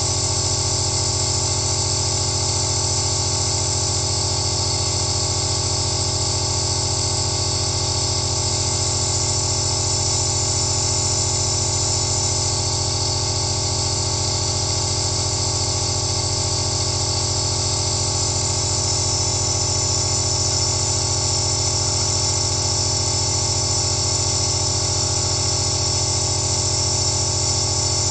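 Compressor nebulizer running steadily: a constant motor hum under the hiss of air and mist passing through the medication cup and face mask.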